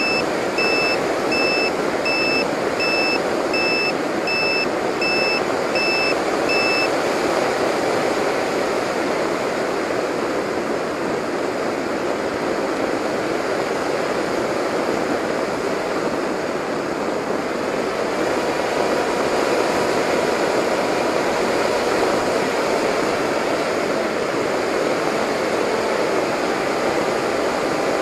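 Steady rush of airflow and propeller noise heard from on board a Delta Speed XS model flying wing in low, fast flight. A high electronic beep repeats about one and a half times a second until about seven seconds in, then stops.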